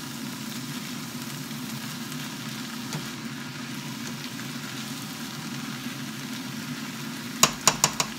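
Ground chicken, shredded cabbage and carrots sizzling in a nonstick frying pan while a plastic slotted spatula stirs them. Near the end come four sharp taps in quick succession, the spatula knocking against the pan.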